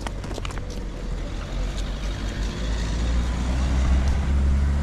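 A motor vehicle's engine running on the road close by, a deep steady hum that grows louder about three seconds in as it nears, over general street traffic.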